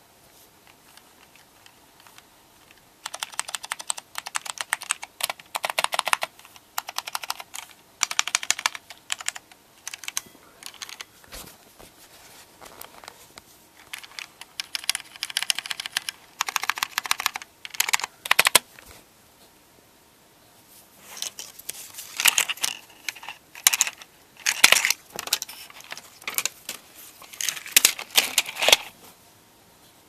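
Keys of an IBM PC Convertible 5140 keyboard with ALPS brown tactile switches being typed in fast runs of clicky keystrokes. The typing starts a few seconds in and stops for about two seconds in the middle.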